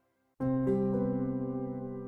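Background music on a keyboard. After a brief near-silent gap, a sustained chord comes in about half a second in, and another note is added shortly after.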